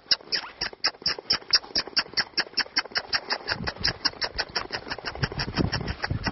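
A horse ridden at a canter on sand, with a steady train of sharp, squeaky clicks about four a second and dull hoof thuds that come in about halfway through and grow stronger.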